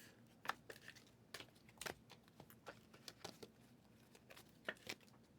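Faint, scattered soft clicks and rustles of trading cards being handled and flipped through one after another.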